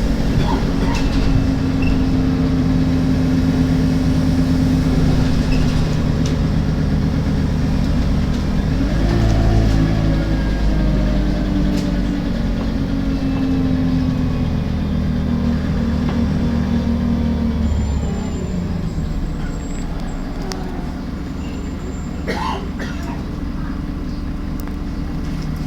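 MAN-chassised Alexander Dennis Enviro 300 bus running: the diesel engine note steps up in pitch about nine seconds in, holds, then drops back and quietens about eighteen seconds in. A few sharp clicks sound now and then over the engine.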